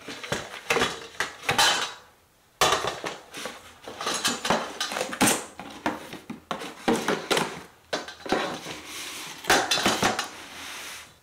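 Metal parts of an IKEA Tesammans lamp being handled and set down: repeated clinks and knocks of the painted steel shades and wire frame against each other and the cardboard box. There is a denser rustle of paper and packaging near the end.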